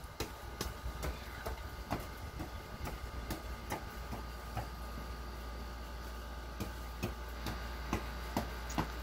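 A child's hopping footfalls on a concrete walkway: soft landings in sneakers, about two to three a second, pausing briefly in the middle before starting again. A steady low hum runs underneath.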